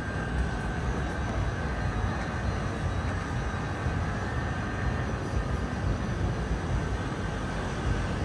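Steady low rumble of outdoor city ambience, even throughout with no distinct events.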